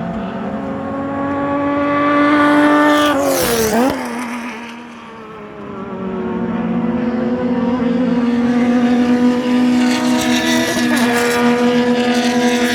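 TC Zonal touring race cars passing at speed: one car's engine note rises as it approaches, then drops sharply in pitch as it goes by about three and a half seconds in. After a brief lull, another car's engine builds up and passes near the end.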